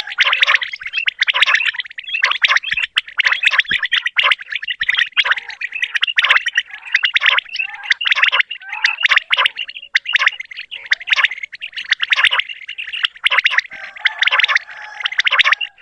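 Many common quails (batair) calling at once: a dense, continuous chatter of short, high calls overlapping one another.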